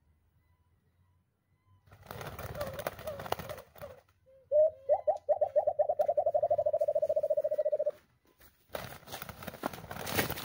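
Wild white-eared brown doves struggling and flapping their wings on a bamboo perch, with rustling in two bursts. Between them comes a loud run of low dove coos that starts slowly and speeds up to about ten a second, held for about three seconds.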